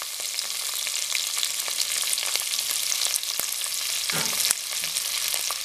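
Chopped onions, curry leaves and green chillies sizzling and crackling in hot oil in a pan: a steady frying hiss full of small pops.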